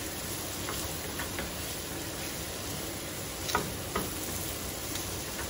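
Shrimp and diced onion sizzling steadily in a skillet, stirred with a wooden spoon that knocks against the pan a few times, the sharpest knock about three and a half seconds in.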